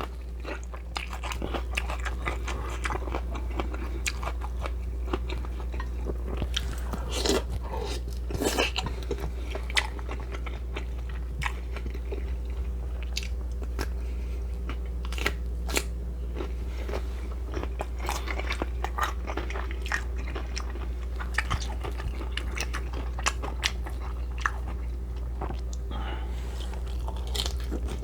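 Close-up chewing and crunching of food in the mouth, with frequent short crisp crunches and wet mouth clicks, over a steady low hum.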